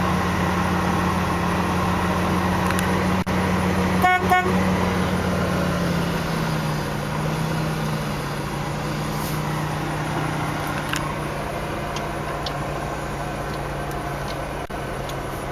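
1991 Chevrolet S10 pickup's engine idling steadily, heard from inside the cab, its idle speed dropping a little about six seconds in. The horn gives two short toots about four seconds in.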